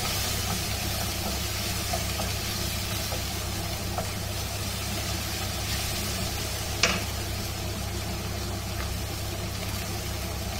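Vegetables stir-frying in a wok over a gas burner: a spatula scrapes and taps the pan over a steady low hum, with one sharper clink about seven seconds in.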